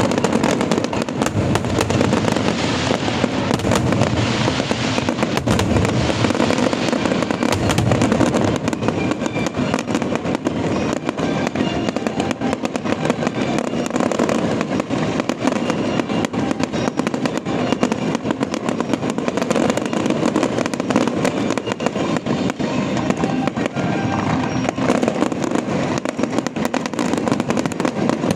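Aerial fireworks going off without a break, a dense stream of crackling and popping, with show music playing underneath.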